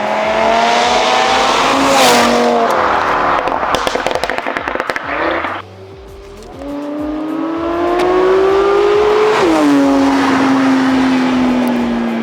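Two cars heard in turn while moving. First an Audi RS3's turbocharged five-cylinder, fitted with a downpipe, accelerates, shifts up and pops and crackles from the exhaust. Then a stock Porsche GT3's naturally aspirated flat-six pulls in one long rising rev, drops sharply at an upshift and keeps pulling.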